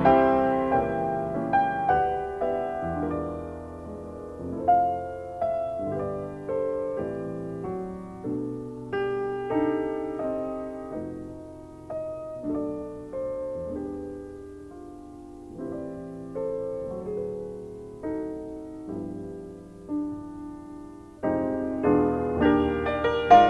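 Background piano music: a slow, gentle line of single notes and chords, each struck and left to fade, growing fuller and louder near the end.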